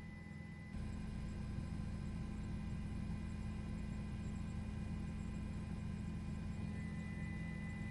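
Steady low electrical-sounding hum with a few faint, steady high tones over it, growing slightly louder about a second in.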